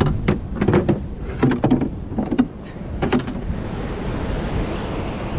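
Knocks, scrapes and squeaks of a plastic cooler box being handled on rock. About three seconds in these give way to a steady rush of wind on the microphone with surf.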